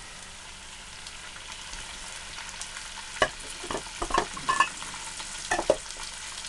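Diced raw chicken breast frying in hot oil and spice paste in a frying pan, a steady sizzle. From about halfway a utensil scrapes and knocks against the pan as the chicken is stirred.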